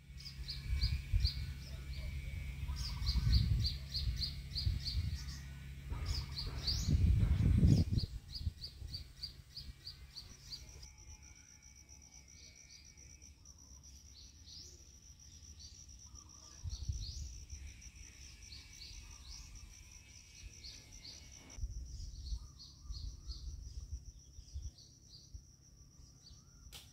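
Outdoor ambience of birds calling in rapid runs of short high chirps, over a low rumble that is strongest in the first eight seconds. From about ten seconds in, a steady high insect trill joins and runs on under the chirps.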